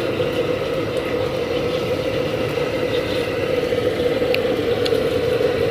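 A steady mechanical roar with a constant mid-pitched hum that holds without change.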